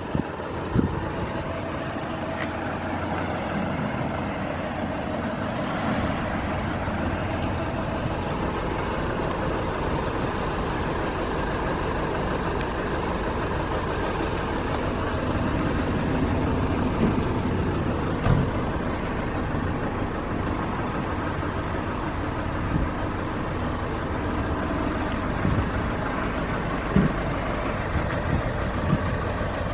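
Nissan NV350 Caravan's 2.5-litre diesel engine running steadily, with a few short knocks.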